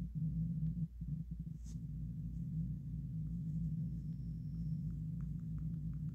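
A steady low hum, with a few faint short ticks near the end.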